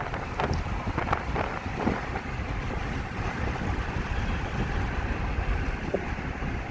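Road and engine rumble inside a moving car's cabin, steady and low, with a few light knocks and rattles in the first two seconds and one more near the end.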